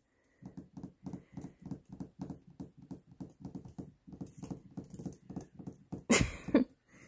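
A puppy's paws tapping on a wooden parquet floor as it trots about, a quick run of light taps, about four or five a second. A louder short noise comes near the end.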